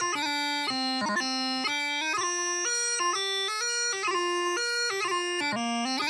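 Full-size bagpipe practice chanter playing a pipe tune without drones: a single reedy melody stepping between held notes, broken up by quick grace-note ornaments.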